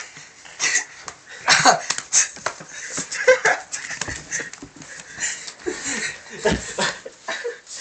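Boys laughing in irregular, breathy, wheezing bursts while they wrestle.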